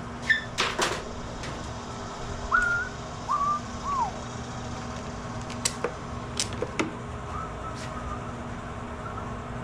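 Sharp clicks and taps of small metal parts and tools being handled on a push mower's engine, loudest near the start. A few short whistled notes come a little after two seconds in, the last one sliding down in pitch, over a steady low hum.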